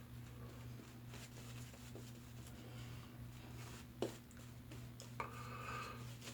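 Quiet room with a steady low hum, a single sharp tap about four seconds in and a softer click a second later, followed by a brief rustle.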